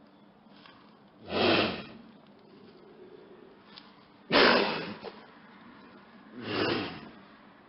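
Lynx hissing: three short breathy bursts without any pitch, about a second in, about four and a half seconds in, and near the end. The middle one starts suddenly and is the loudest.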